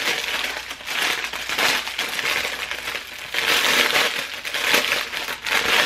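Clear plastic packaging crinkling and rustling in irregular bursts as clothes are handled and pulled out of it, loudest a little past the middle.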